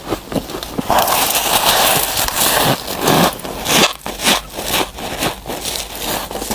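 A mouth biting into a chunk of fresh freezer frost and chewing it. A long crunch of about three seconds comes first, then a quick run of short, sharp crunches.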